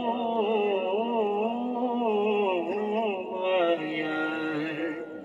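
A man singing a Punjabi devotional kalam, holding long notes that waver in pitch with few breaks.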